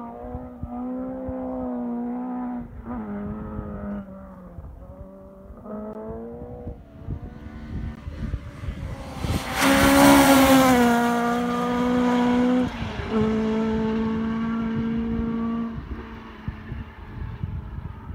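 Mk2 Ford Escort rally car at full throttle on a gravel stage, its engine note climbing and dropping through several gear changes as it approaches. It passes close about ten seconds in with a rush of tyre and gravel noise, changes gear once more and fades away.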